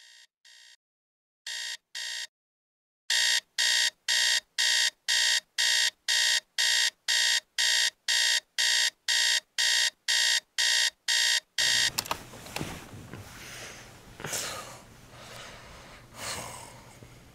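Digital alarm clock beeping about twice a second, starting faint and getting louder in steps until it is loud, then cut off abruptly about twelve seconds in. Soft, irregular rustling follows over a low steady hum.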